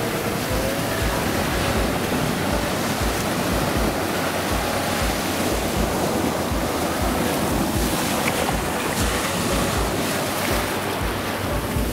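Shallow surf washing up and running over wet sand at the water's edge, with wind buffeting the microphone.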